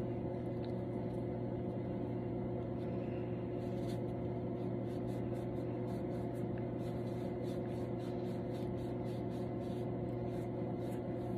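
Cotton pad wet with micellar water rubbed hard back and forth on the skin of a hand, faint quick swishes over a steady low hum.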